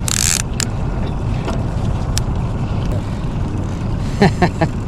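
Steady low rumble of a fishing boat's motor, with wind on the microphone.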